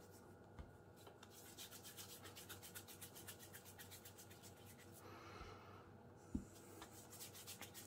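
Faint rubbing of hands rolling pieces of pastry dough into balls against each other and the worktop, with a soft thump a little past six seconds in.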